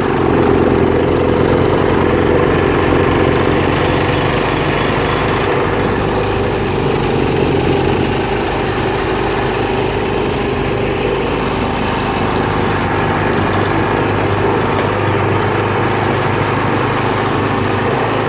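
Blizzard wind buffeting the microphone: a loud, steady rumble and roar that carries on without a break.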